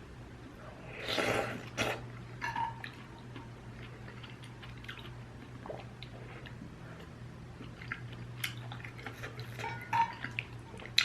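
Close-miked eating of ramyun noodle soup: a slurp about a second in, then wet chewing clicks and light taps of utensils on the bowl. A steady low hum sits underneath.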